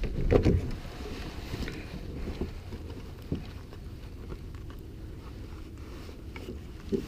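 Wind buffeting the microphone on a kayak, with a few short knocks of handling, the loudest about half a second in.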